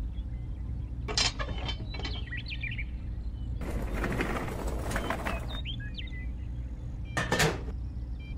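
Small clicks and a rustling scrape of about two seconds from a toy tractor's plastic parts and its trailer hitch being handled, with short bird chirps in the background.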